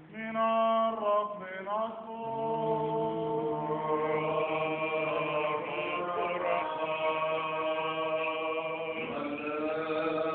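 Orthodox liturgical chant: a voice sings long, drawn-out melodic notes over a steady lower held note, a drone in the manner of Byzantine chant.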